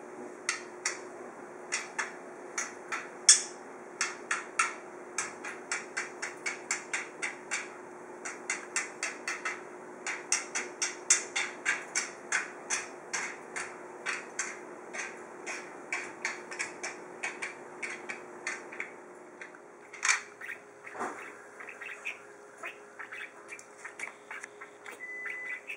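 Budgerigar's beak tapping on a hard surface in a quick, even series of sharp taps, about three or four a second, as it bobs its head; the taps thin out and become irregular after about twenty seconds.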